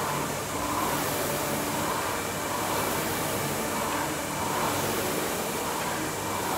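Concept2 rowing machine's fan flywheel whirring, swelling and fading with each stroke.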